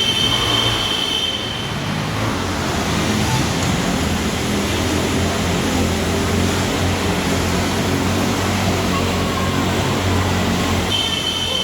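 Motorcycle engines running steadily, a continuous loud drone with no breaks, as riders circle inside a circus globe of death.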